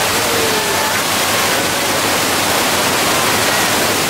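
Flood effect on a studio-tour subway set: a torrent of water rushing and cascading, a loud, steady rush of noise.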